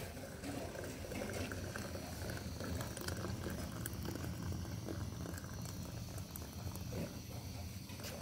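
Water poured from a kettle into a small steel teapot, a steady trickling splash with a few light clicks of metal.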